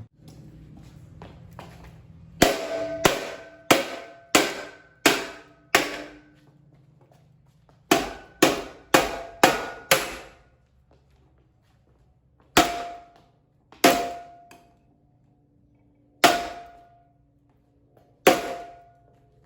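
Repeated hard blows struck on a Hampton Bay Gazebo ceiling fan, each a sharp knock followed by a short ringing tone. A quick run of six blows, then a run of five, then four slower blows about two seconds apart.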